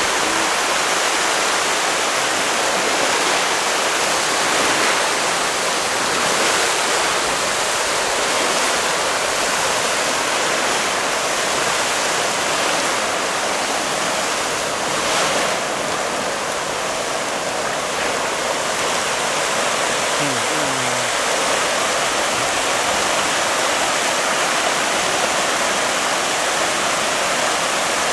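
A dense shoal of tra catfish (pangasius) in a feeding frenzy, thrashing and splashing at the pond surface as feed is poured in: a loud, steady rush of churning water.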